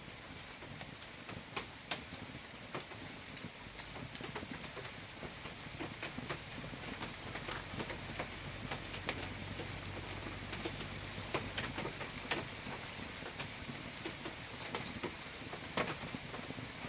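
Wood fire crackling in a fireplace: irregular sharp pops and snaps over a soft, steady hiss.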